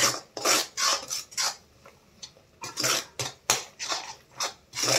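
Perforated steel ladle scraping and stirring a thick mix of grated coconut and sugar syrup around a metal kadai, in a run of short scrapes about two a second with a brief pause about two seconds in.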